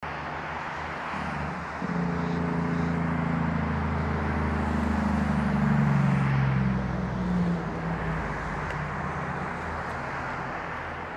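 Steady road-traffic noise from a busy multi-lane highway. A heavier vehicle's engine hum swells about two seconds in, sinks slightly in pitch as it passes, and fades out by about eight seconds.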